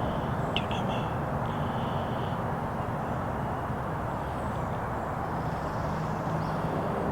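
Steady outdoor background noise with a few short, high bird chirps about half a second to a second in, and a brief high note near two seconds.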